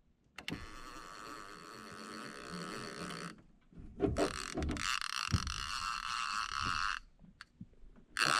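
Fishing reel's line-out clicker buzzing in three bursts as a fish strips line off the reel, each burst starting and stopping abruptly, with a few low knocks between the first two bursts.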